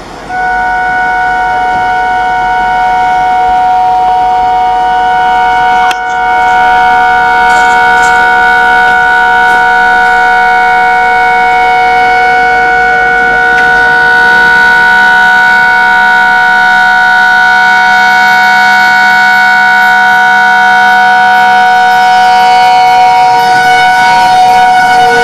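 A WDM 3D diesel locomotive's air horn held in one long blast as the train approaches, a chord of several steady tones, broken briefly about six seconds in. At the very end the pitch begins to drop as the locomotive passes.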